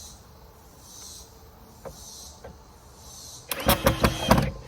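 Cicadas buzzing in background waves that swell and fade about once a second, with a loud whir lasting about a second near the end.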